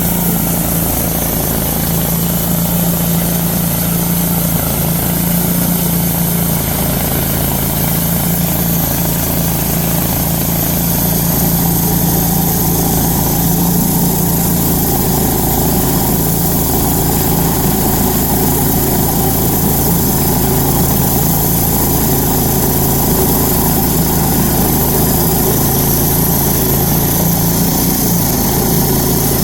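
Wood-Mizer LT-10 portable band sawmill running steadily, its engine driving the band blade through a log, a little louder from about eleven seconds in.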